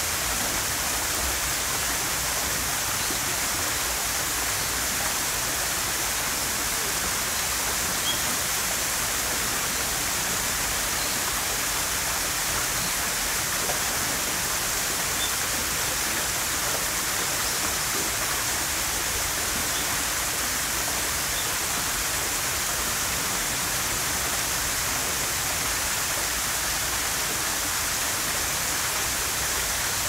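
Small waterfall pouring over a stone-block wall into a pond: a steady, even rush of falling water.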